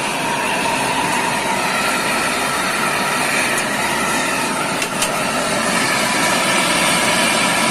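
Steady machinery running, with a faint high whine over an even noise and no hammer blows.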